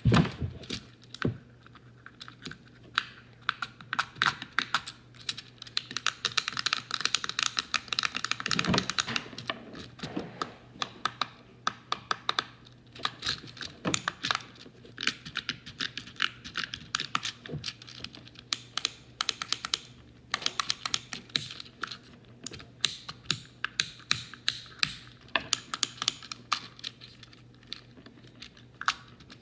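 Plastic fidget cube being clicked and fiddled with: many short, sharp clicks in quick irregular runs with brief pauses.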